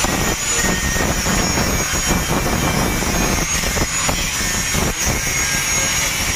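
Loud, steady mechanical noise with a thin high whine, broken by scattered knocks and clicks.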